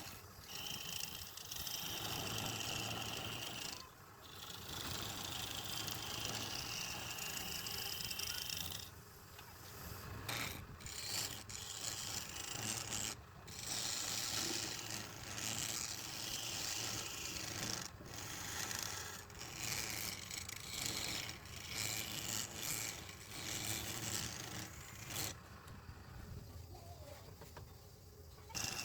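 Wood being worked on a running lathe: a tool or abrasive rubs against the spinning workpiece in irregular passes, giving a hissing scrape that drops out briefly a few times. Under it is a steady low motor hum.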